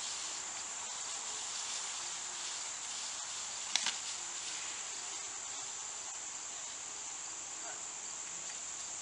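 Steady, high-pitched chorus of insects, with a single sharp click about four seconds in.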